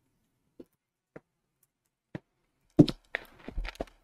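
A few faint isolated clicks, then a soft knock near the end followed by a quick run of light taps: small handling sounds.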